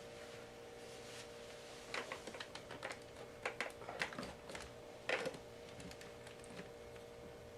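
A run of light clicks and knocks over a faint steady hum, bunched between about two and five and a half seconds in, the loudest a knock a little after five seconds.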